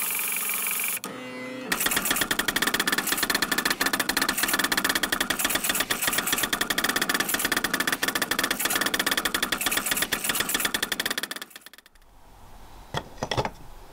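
3D printer running a print: a steady hiss for the first second or so, then a fast, even mechanical chatter from its motors that fades out about eleven seconds in.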